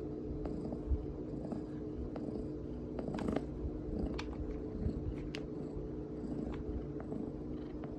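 Cat purring steadily while being stroked, with a few light clicks.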